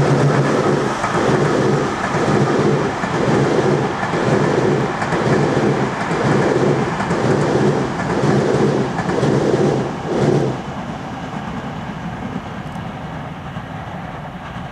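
Rolling clatter of hauled Tobu 50000-series electric train cars passing on the rails, beating about once a second as each car's wheelsets cross the rail joints. The beat stops suddenly about ten seconds in, leaving a fainter steady rumble.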